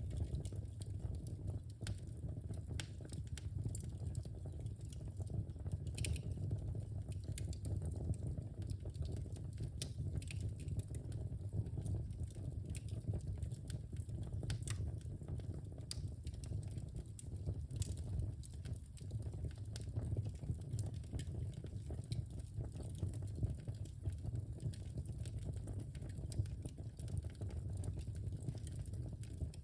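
Wood fire burning in a fireplace: irregular crackles and snaps over a steady low rumble of the flames, with a few sharper pops standing out.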